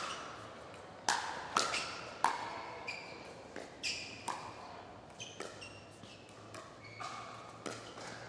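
Pickleball paddles hitting a plastic pickleball in a rally: about a dozen sharp pops at irregular intervals, several with a short ringing tone after the hit.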